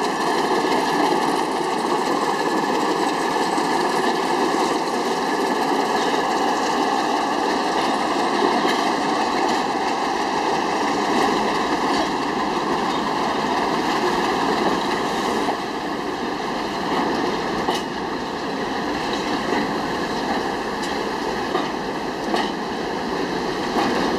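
PKP ST43 diesel-electric locomotive running under power as it hauls a train of open freight wagons slowly past. There is a steady engine and rolling noise, a little quieter in the second half as the wagons follow, with a few short knocks from the train.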